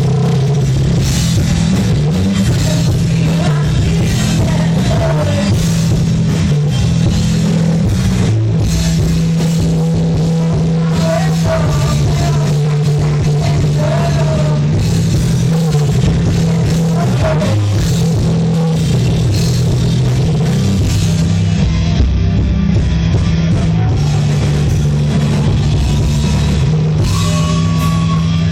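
Loud rock music with drum kit and a bass line moving between notes, played without a break.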